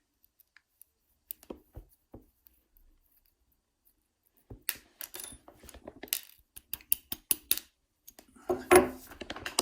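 Small lock pins and springs clicking and rattling as they come out of a euro cylinder's pin chamber and drop into a plastic pinning tray. A few light clicks at first, then a busy run of clicks and rattles in the second half, loudest near the end.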